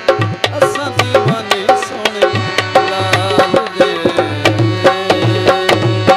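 Tabla played fast, with sharp strokes and bass strokes that glide up in pitch, over a steady harmonium.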